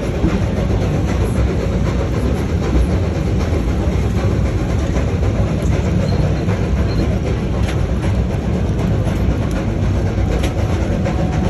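Narrow-gauge open passenger car rolling along the track: a steady rumble of wheels on rail, with a few light clicks.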